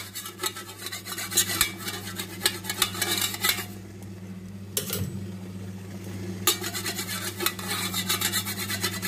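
A metal spoon scraping and rubbing oil over a perforated aluminium steamer tray: quick scrapes and clinks, a pause of about three seconds near the middle broken by one clink, then more scraping. A steady low hum runs underneath.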